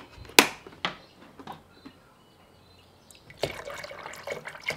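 A plastic screw cap comes off a 5-litre bottle of demineralised water with a sharp click about half a second in, then a few lighter clicks. About three and a half seconds in, a stream of water starts pouring into a plastic measuring jug of coolant concentrate.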